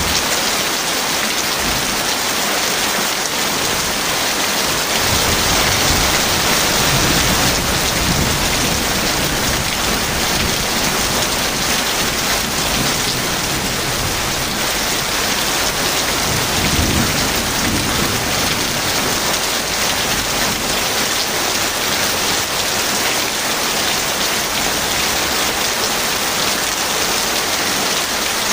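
Heavy rain falling steadily, with low rumbles of distant thunder swelling about five seconds in and again past the middle.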